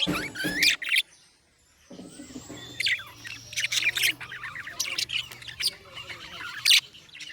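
Budgerigars chirping in short, sharp, rapid calls, the cheerful chatter of content budgies, over a faint steady low hum. It begins about two seconds in, after a louder sound cuts off within the first second and a brief near-silence.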